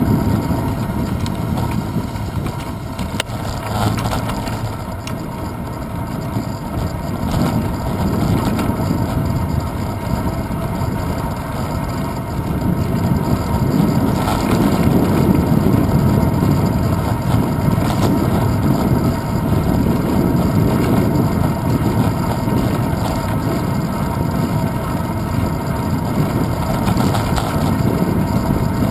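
Steady rumble of wind and road vibration picked up by a handlebar-mounted GoPro Hero 2 as a bicycle rolls along a city street, with a few light knocks from bumps. It grows somewhat louder about halfway through.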